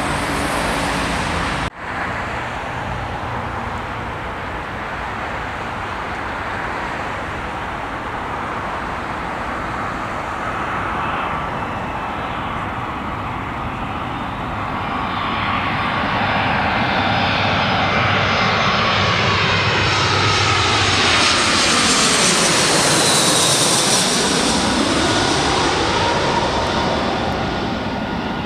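Road traffic, a passing bus, cut off suddenly within the first two seconds. Then a twin-engine jet airliner on final approach grows louder as it comes over. Its engine whine swells to a peak about three-quarters of the way through, with a swirling tone that sweeps down and back up as it passes overhead, then eases off.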